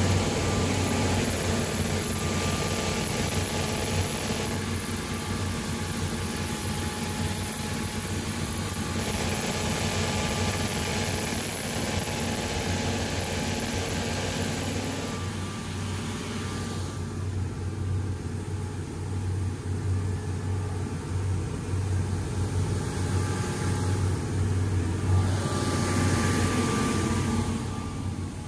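MAN V8-900 (D2848 LE) V8 marine diesel engine running steadily, a continuous low drone with hiss above it that drops away for several seconds past the middle and comes back near the end.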